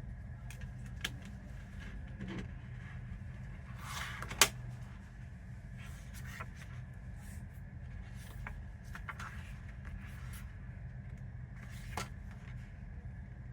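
A CD's packaging being handled: scattered light clicks and rustles of plastic and paper, with one sharper click about four and a half seconds in, over a steady low hum.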